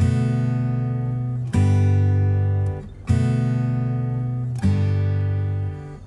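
Background music: an acoustic guitar strumming a chord about every second and a half, each chord left to ring and fade before the next.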